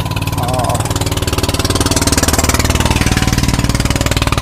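Small inboard engine of a motorised outrigger boat (bangka) running steadily as it passes close by, with a rapid, even firing rhythm that swells a little toward the middle.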